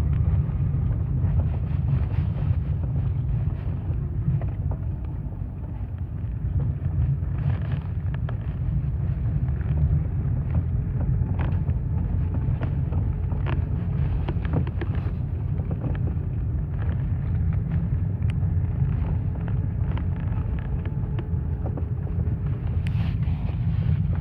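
Lada Kalina 2 on the move: steady low road rumble with irregular sharp knocks, which the owner puts down to the steering rack.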